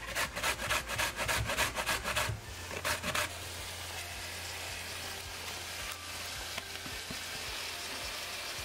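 Grated sweet potato being stirred into onions and garlic frying in oil: a utensil scrapes and taps against the pan about five times a second for roughly three seconds, then the pan settles into a steady sizzle.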